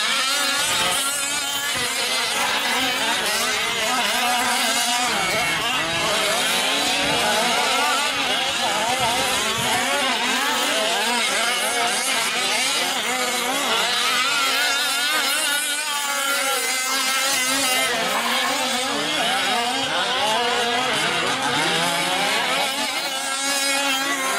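Several 1/5-scale gas RC trucks' small two-stroke engines running hard together, their overlapping pitches rising and falling as throttles open and close.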